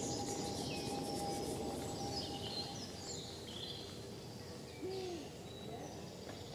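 Several songbirds chirping and trilling over a steady low rumble. A faint held tone fades out about halfway through, and a single short low hoot comes about five seconds in.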